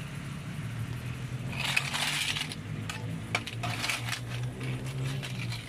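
Scallops in their shells clinking against each other and the metal pot as they are stirred, with a cluster of clinks about two seconds in and a few single ones after. A steady low hum runs underneath.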